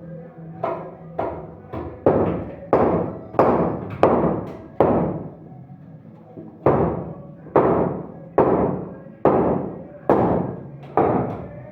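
Hammer blows: a run of about eight sharp strikes, each ringing briefly, then a break of under two seconds and about six more strikes at the same steady pace.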